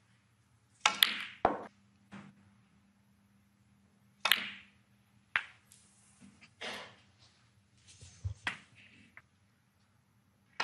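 Snooker cue and balls clicking as shots are played: sharp single clicks and quick pairs of clicks a few seconds apart, from the cue tip striking the cue ball and the balls knocking into each other.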